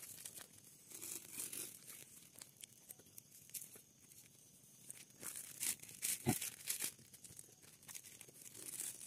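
Plastic crinkling and rustling, as of instant-noodle seasoning sachets being torn and handled, with scattered light clicks and a soft knock about six seconds in.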